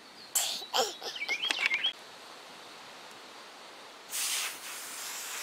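A bird calling in a quick run of wavering, chirping notes for about a second and a half. A short hiss follows about four seconds in.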